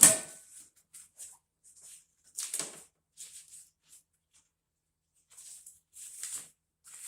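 A loud knock, then a string of short, separate rustling and scraping noises a second or so apart.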